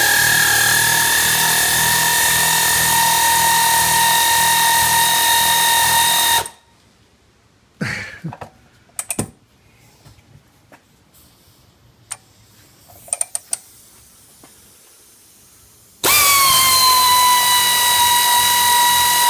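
Pneumatic air ratchet running steadily as it turns the screw of a scissor jack used as a transmission hoist, a loud, even whine. It stops about six seconds in, leaving a few light clicks and knocks. It starts again near the end, its pitch dropping briefly before holding steady.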